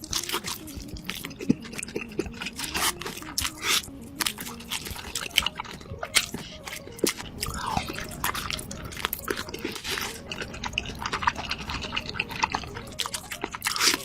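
Close-miked eating sounds: wet chewing and smacking with many quick, irregular clicks while eating a large chicken drumstick.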